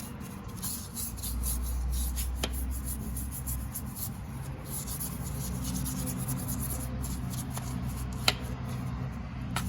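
Rubbing and handling noise as parts inside an open lathe crankcase are worked on by hand, with two sharp clicks, one about two and a half seconds in and one near the end, over a steady low hum.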